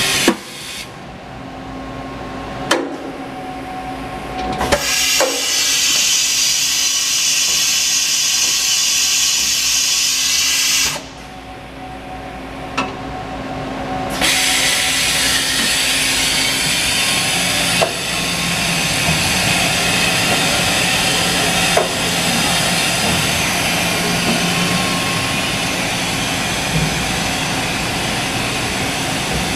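Fadal EMC CNC vertical machining center running a test program, its axis drives moving the table and spindle head with the spindle turning slowly: a steady mechanical whir and hiss that twice drops off for a few seconds and comes back, with a few sharp clicks.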